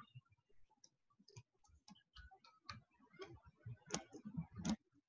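Faint, irregular small clicks and ticks, with two louder clicks near the end.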